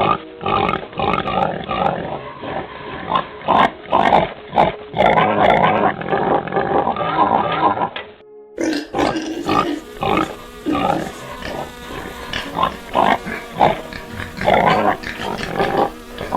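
A dog crying out in short, repeated whimpering cries, with an abrupt change in the audio about eight seconds in.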